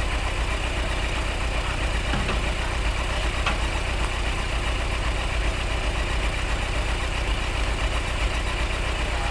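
Vehicle engine idling steadily, an even low pulsing rumble.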